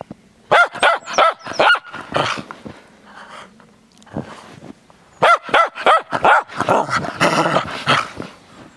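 Cairn Terrier barking in quick, sharp bouts: a run of about five barks, a pause of a few seconds, then a longer, faster run of barks.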